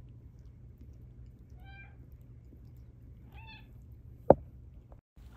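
A domestic cat meowing twice, two short meows about a second and a half apart, followed near the end by a single sharp knock, the loudest sound.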